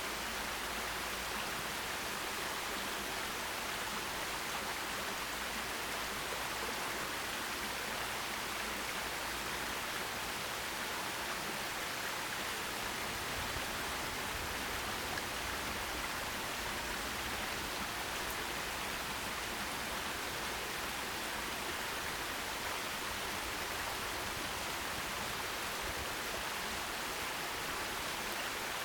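A forest stream with water running over stones in a steady, even rush, with no birds or other sounds standing out.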